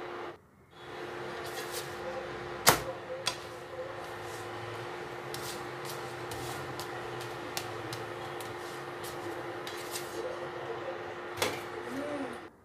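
Induction cooktop running at high power under a cast-iron pan, a steady hum with one held tone that drops out briefly just after the start. A spatula knocks and scrapes against the pan a few times as a roti is turned and lifted, the loudest knock about three seconds in.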